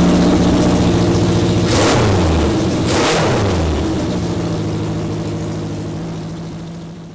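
Honda CB350 Four's air-cooled inline four-cylinder engine running steadily. About two and three seconds in, two brief whooshing passes sweep down in pitch. The whole sound fades away toward the end.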